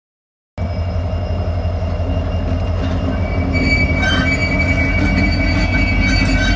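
Norfolk Southern SD70M-2 diesel locomotives passing close by, starting suddenly about half a second in: a steady low rumble of engines and wheels on rail, with a high steel wheel squeal coming in a few seconds later.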